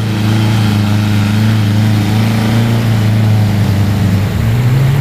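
Off-road 4x4 vehicle engine running steadily under load, its note climbing near the end as it revs up.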